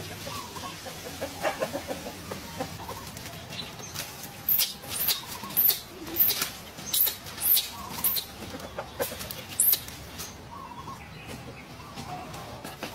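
A series of short, sharp, high-pitched animal calls, about two a second, from about four seconds in until near the ten-second mark, with a few lower short calls around them.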